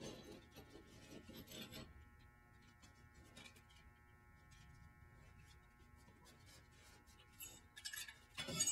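Steel disc-brake caliper brackets being handled and fitted together by hand: quiet rubbing and scraping of metal on metal, a few light clicks, and a sharper metal clink near the end. A faint steady hum of tones runs underneath.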